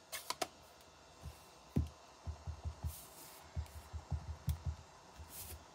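A couple of sharp plastic clicks as a Stampin' Pad ink pad case is opened, then a run of soft low thumps as a clear acrylic stamp block is tapped repeatedly onto the ink pad to ink it.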